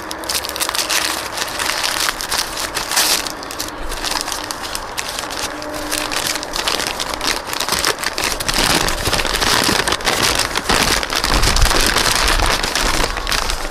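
Brown kraft packing paper being unwrapped and crumpled by hand close to the microphone: continuous crinkling and crackling, with a low rumble in the later seconds.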